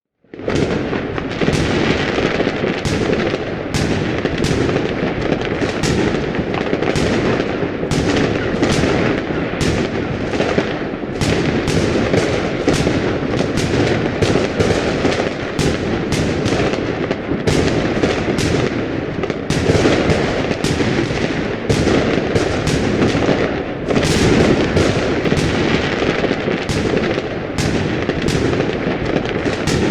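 Fireworks going off without a break: a dense, continuous crackle with many sharp bangs several times a second, starting abruptly about half a second in.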